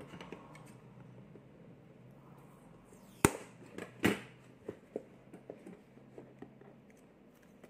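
Cardboard product box handled on a wooden table: a sharp knock about three seconds in, a second knock about a second later, then a run of light clicks and taps as fingers work at the box.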